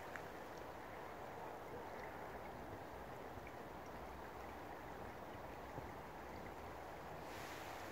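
Shallow river water flowing and rippling steadily.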